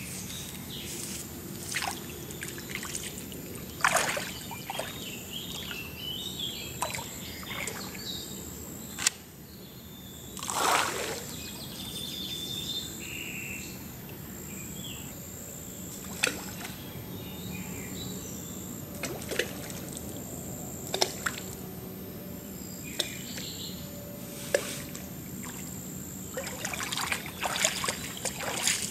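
Riverbank ambience: water trickling and lapping at the bank, small birds calling, and scattered clicks and knocks from gear being handled. About ten seconds in there is a brief swish, the loudest sound in the stretch.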